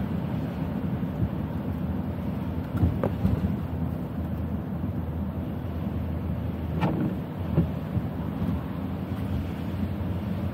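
Steady low rumble of a car driving on rain-wet city streets, heard from inside the cabin, with a few short knocks about three seconds and seven seconds in.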